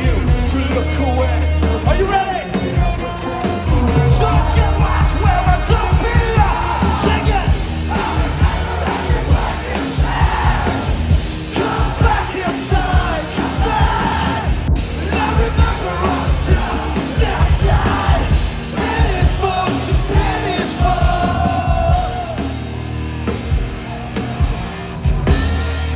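Live rock band playing loud and heavy, with yelled and sung vocals over distorted guitars, bass and drums.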